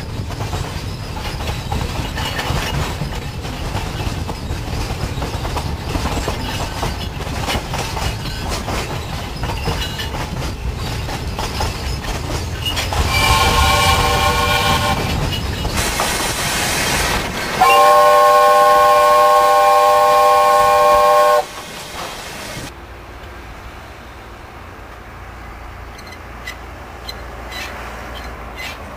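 Loaded coal wagons rumbling and clacking over the rail joints as the steam-hauled train runs along. Then the locomotive's chime whistle sounds twice, several notes at once: a short blast about halfway through, and a few seconds later a louder, longer blast of about four seconds. After that, a much quieter background with a few faint clicks.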